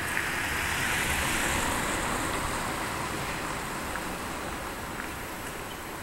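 Street traffic noise, with a vehicle passing that swells about a second in and then fades.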